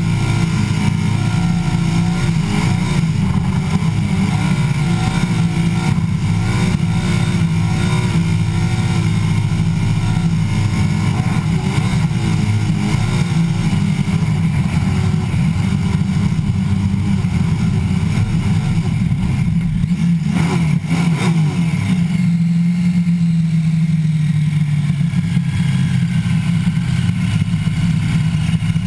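Supercharged skid-car engine held at high revs through a smoky burnout, its pitch wavering. About twenty seconds in the note changes and settles into a steadier tone that slowly falls as the revs come down.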